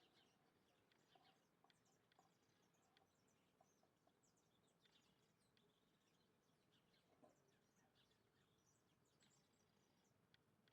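Faint, scattered chirps of small birds, many short high calls over a quiet background hiss.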